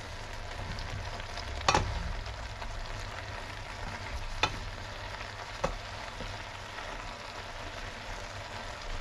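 Green beans and pork sizzling in a stainless steel frying pan as they are stirred with a wooden spoon, with a few sharp knocks of the spoon against the pan, the strongest about two seconds in.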